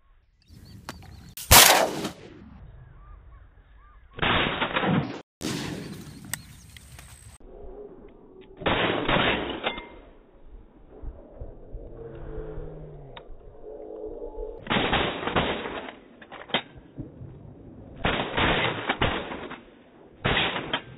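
Shotgun fired repeatedly at flying ducks: about seven loud blasts a few seconds apart, each trailing off in an echo.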